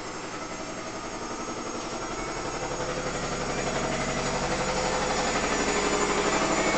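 A steady machine drone with a fast, even pulse running through it, growing louder toward the end; the uploader takes the noise to be a washing machine running.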